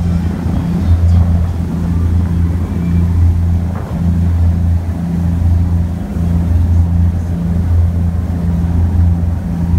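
Fast passenger boat's engines running at cruising speed, a steady low drone, over the rush of water and wind.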